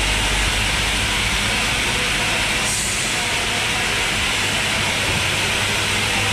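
Steady factory machinery noise in a stainless-steel processing hall: an even hiss with a low electric-motor hum underneath, and a brief sharper hiss a little under three seconds in.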